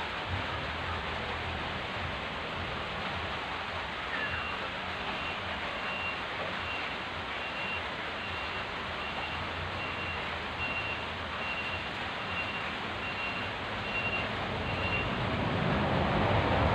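A vehicle's reversing alarm beeping, a high electronic tone repeating about once every three-quarters of a second for around ten seconds, over a constant background hiss.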